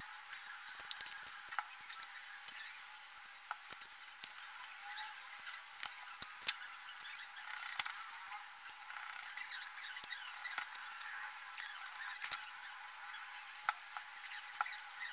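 Scattered light clicks and taps of plastic parts on a JBL Pulse Bluetooth speaker's housing being handled and fitted back together by hand, over a faint steady background hiss.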